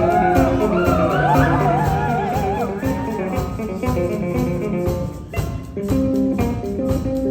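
Saxophone section of alto, tenors and baritone playing a jazz-blues tune with piano and bass guitar over a steady beat. In the first three seconds one saxophone line bends and wavers through sliding notes over the held chords.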